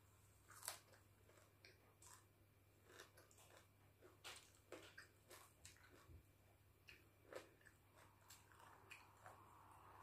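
A person chewing a mouthful of raw leafy greens with sticky rice and eggplant dip: faint, irregular wet mouth clicks and small crunches, the sharpest click about a second in.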